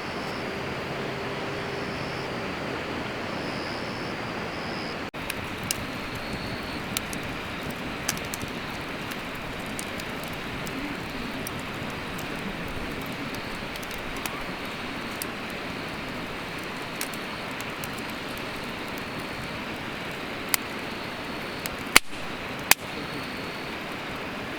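Campfire burning in a mesh-sided fire pit: a steady rushing hiss with scattered sharp crackles and pops from the burning wood, a few of them louder near the end.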